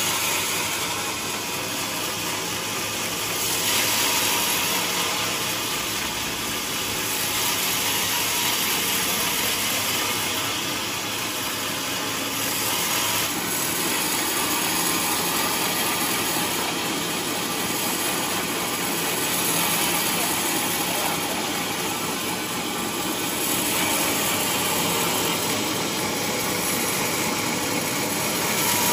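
Large sawmill band saw cutting lengthwise through a trembesi (rain tree) hardwood log: a steady, loud machine noise that swells and eases every few seconds.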